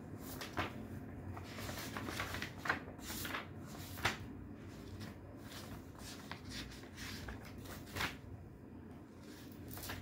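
Paper rustling as pages are leafed through while searching for a written passage, with several sharper crackles of paper spread through.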